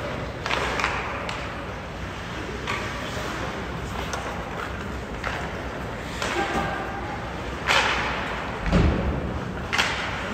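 Ice hockey play in an arena: scattered sharp clacks and scrapes of sticks, puck and skates on the ice, and a deep thud about nine seconds in.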